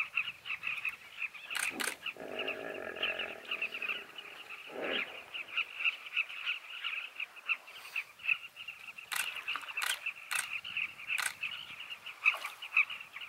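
A nesting colony of carmine bee-eaters calling without pause, many short calls overlapping into a steady chatter. A deeper drawn-out call sounds about two seconds in, and a few sharp knocks come in the second half.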